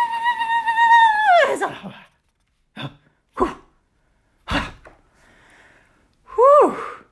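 A woman's high-pitched, held squeal that slides down and trails off about a second and a half in. Then come a few short, sharp breathy vocal bursts and, near the end, a brief cry that rises and falls.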